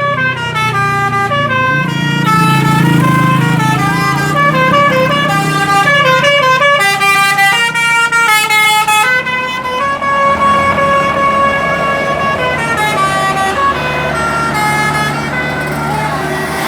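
A bus's basuri 'telolet' musical air horn playing a tune of stepped notes, several horn tones sounding together, nearly the whole time with short breaks. The bus's engine runs underneath.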